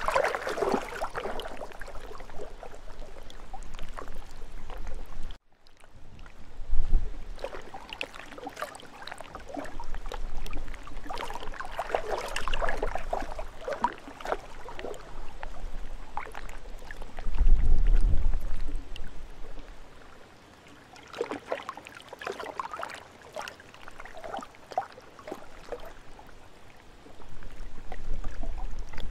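Small lake waves lapping and splashing against the shore in irregular swells. Wind rumbles on the microphone in two heavy gusts, one about seven seconds in and a longer one past the middle. The sound cuts out for a moment about five seconds in.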